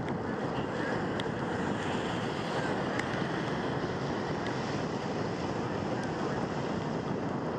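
Steady rushing wind noise buffeting the microphone while riding, with a few faint ticks.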